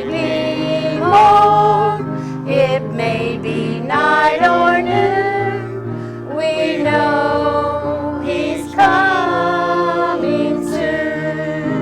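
Gospel hymn singing with a held, wavering voice over instrumental accompaniment.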